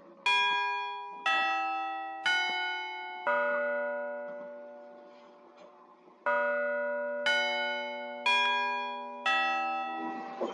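Bell-like chime tones, struck eight times in two phrases of four, about a second apart, each ringing out and fading.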